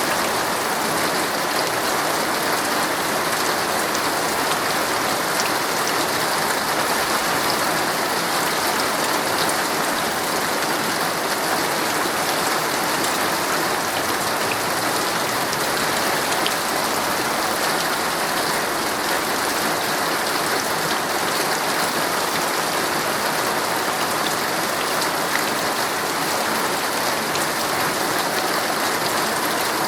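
Heavy rain drumming steadily on a tent's fabric, a dense even patter with scattered individual drop ticks.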